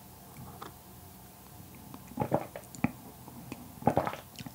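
Close-up sipping and swallowing of drip coffee from a ceramic mug: quiet at first, then wet clicking gulps about two seconds in and again near four seconds.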